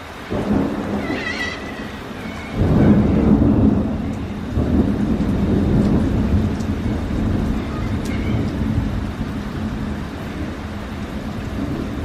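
Thunder rumbling over steady rain. A rumble starts just after the beginning, a louder peal comes about two and a half seconds in, and the rumble rolls on and slowly fades.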